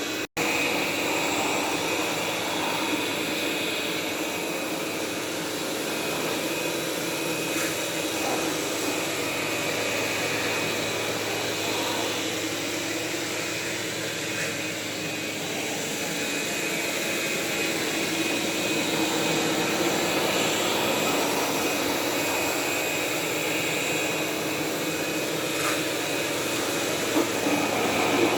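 Roborock S7 robot vacuum running with a steady whir from its suction fan and brushes, with an instant's break near the start and a few faint clicks.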